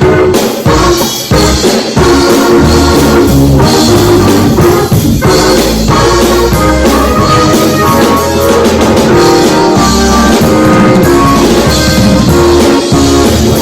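Loud band music with a drum kit and a heavy bass line under sustained chords.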